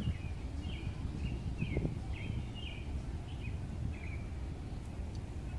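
A small bird chirping, a quick run of about nine short high notes that stops about four seconds in, over a steady low rumble.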